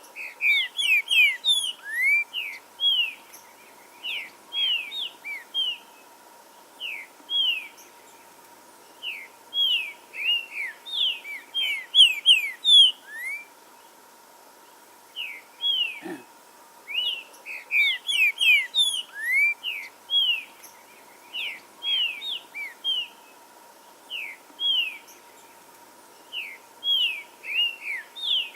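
Green-winged saltator (trinca-ferro) singing: bursts of quick whistled notes in phrases, separated by pauses of a second or more. A faint steady tone lies underneath.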